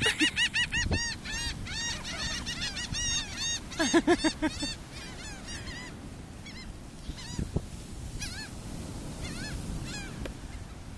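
A flock of birds calling, a rapid run of short rising-and-falling calls, several a second. The calls are thick for the first five seconds, with a lower call among them about four seconds in, then come only now and then.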